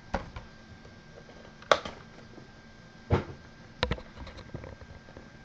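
Hands handling sealed foil trading-card packs on a wooden tabletop: about four short, scattered taps and clicks, the sharpest a little under two seconds in.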